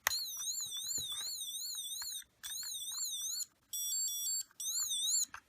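A LEGO Light and Sound sound brick plays an electronic siren: a high tone warbling up and down about three times a second, in several bursts with short gaps. About midway it briefly changes to a stepped beeping pattern.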